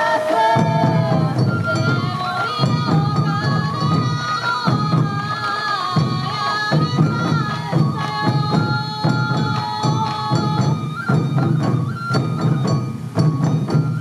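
Sansa odori festival music: large sansa taiko drums, beaten by the dancers in a steady repeating rhythm, under a Japanese transverse flute (fue) melody.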